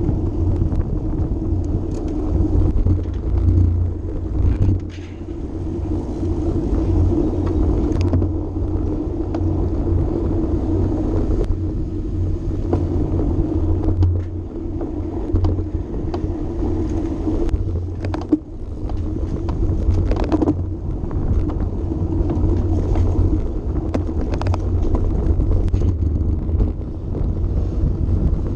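Steady rumble of wind on the microphone and road-bike tyres rolling at racing speed on the track surface, with a few sharp clicks.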